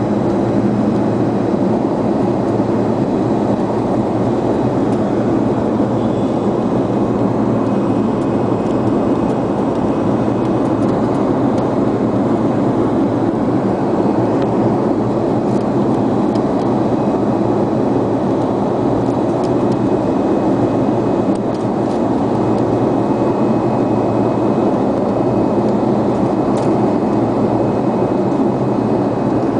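Steady cabin noise inside a Fokker 100 airliner climbing after takeoff: its two rear-mounted Rolls-Royce Tay turbofans running and air rushing past the fuselage, an even low rumble with a faint thin whine above it.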